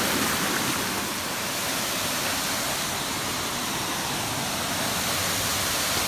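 Waterfall pouring over rocks: a steady, even rush of falling water.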